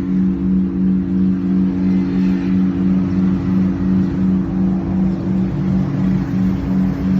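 Newly cast đại hồng chung, a large Vietnamese temple bell, ringing on with a deep steady hum of several tones. The lowest tone pulses about three times a second.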